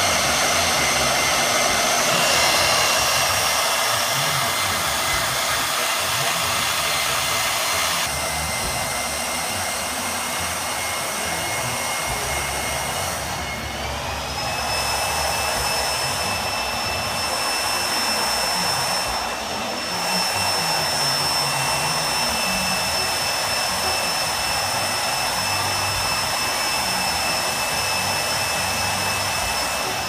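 Electric motor running steadily with a high whine; the whine steps up in pitch about fourteen seconds in.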